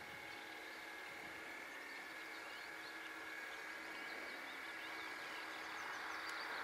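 Faint steady whine of a radio-controlled model tugboat's motor, growing slowly louder as the boat comes closer, with small birds chirping.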